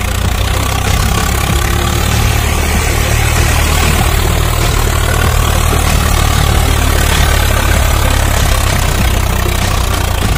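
A steady, low engine-like drone, as of an engine idling, holding an even level throughout.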